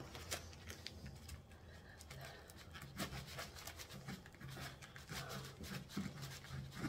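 Kitchen knife sawing into a compressed coconut-coir brick: a series of dry scraping, rasping strokes as the blade works through the very hard block.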